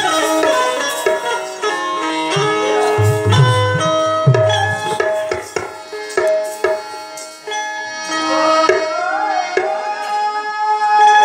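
Live folk-theatre accompaniment: a held-note reed-organ melody from a harmonium over tabla and dholak drumming. The drumming thins briefly about two-thirds through, then the music picks up again.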